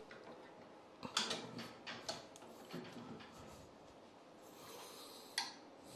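Faint scattered clicks and knocks of metal woodturning tools being handled at the lathe's chuck and tool rest, with a sharper click about five and a half seconds in.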